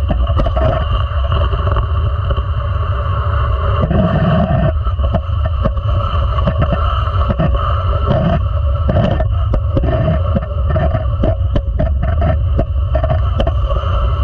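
A sled hockey sled gliding on the ice, heard from a camera mounted on the sled itself: a loud, steady rumble and scrape of the runners on the ice. From about five seconds in, a quick run of sharp clicks and knocks sounds over it.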